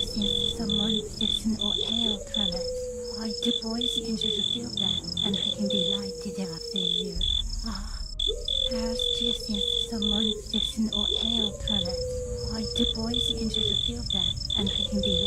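Crickets chirping steadily, high short chirps about three a second. Under them a lower drawn-out sound, sagging slowly in pitch, comes again every two to three seconds.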